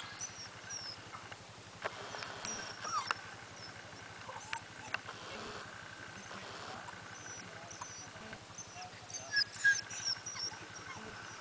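Cattle dog puppy giving short, scattered yips and whines, with a few sharp clicks between them.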